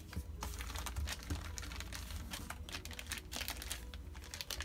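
Clear plastic packaging crinkling as craft stickers are handled, a dense run of small crackles throughout.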